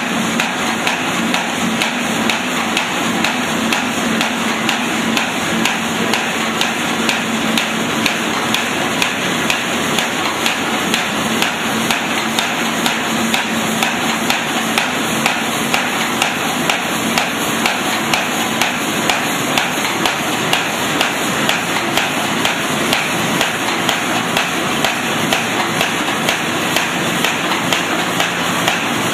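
Automatic roll-fed paper bag making machine running: a steady, even clatter of sharp knocks, a few a second, over a steady low hum.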